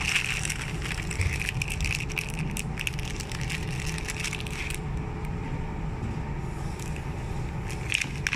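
Plastic and cellophane snack wrappers crinkling as they are handled: a dense run of crinkles for the first half, quieter after, then a few sharp crinkles near the end, over a steady low rumble.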